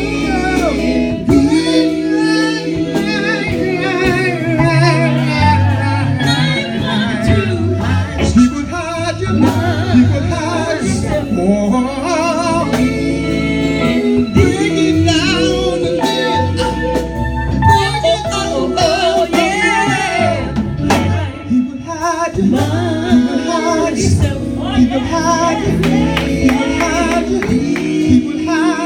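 Gospel music: singers with instrumental backing and a steady beat.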